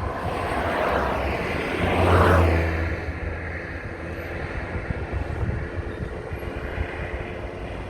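Car engine and road noise heard from inside the moving car, a steady low hum under a rushing noise that swells about two seconds in and then eases.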